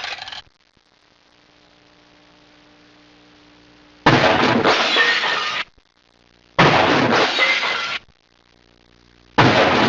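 Glass shattering sound effect, repeated. The tail of one crash ends just after the start, two more crashes follow, each about a second and a half long, and another begins near the end. A faint hum sits between them.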